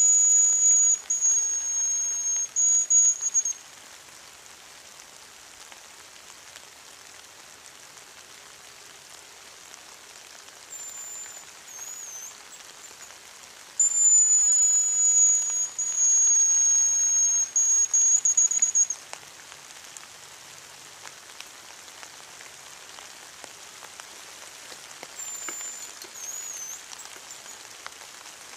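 Hazel grouse whistle decoy blown twice, each a long, loud, very high thin whistled song lasting several seconds, one at the start and one about halfway. Two fainter, short high whistles ending in a wavering trill come in between and near the end: a hazel grouse answering. Light drizzle patters steadily underneath.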